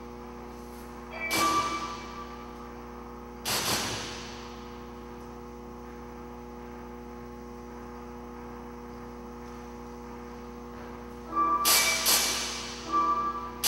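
Sampled electronic sounds triggered by an acceleration sensor on a dancer's arm, each starting suddenly and ringing away over about a second: one about a second in, a sharper one a few seconds in, then several in quick succession near the end. Under them runs a steady electrical hum, alone through the long middle stretch.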